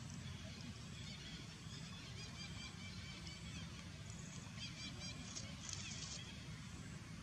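Steady low outdoor rumble with scattered short, high animal chirps, a quick run of them about five seconds in.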